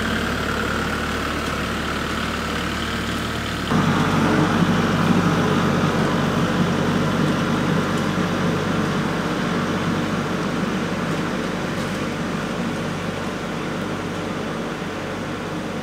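Kubota compact tractor's diesel engine running steadily as the tractor drives off. About four seconds in the sound suddenly gets louder and fuller, then fades slowly as the tractor pulls away.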